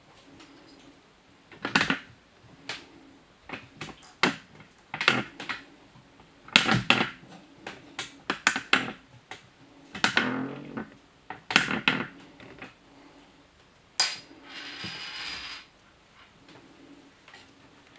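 Plastic ball-track cat toy being batted and pawed by a kitten: about a dozen irregular knocks and clicks. A little before the end, a sharp click is followed by a rattle lasting about a second and a half.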